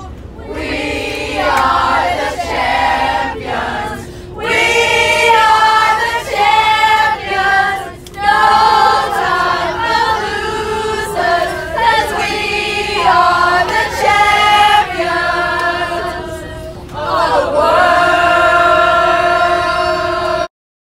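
A choir singing a cappella, many voices in harmony in sung phrases broken by short breaths; the recording cuts off suddenly near the end.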